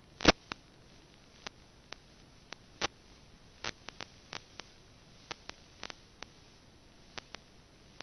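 Faint steady hiss broken by irregular sharp clicks and pops, roughly two a second, the loudest just after the start: static crackle on the empty audio track of an analog FPV video link that carries no microphone.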